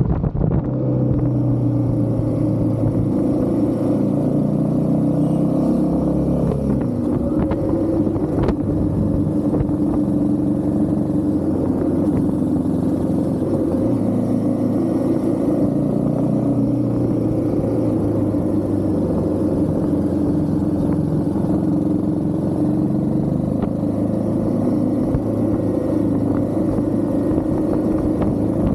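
Royal Enfield Himalayan 450's single-cylinder engine running steadily under way, its note shifting a few times as the throttle changes. A short click about eight seconds in.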